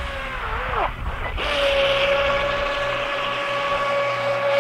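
WL Toys WL915 RC speedboat's brushless motor whining as the boat runs across the water. The pitch sags and cuts out briefly about a second in, then comes back and holds a steady whine.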